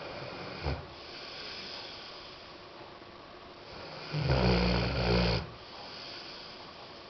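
A sleeping pet snoring: one loud, buzzing snore about four seconds in that lasts just over a second, with softer breathing around it and a brief short sound just under a second in.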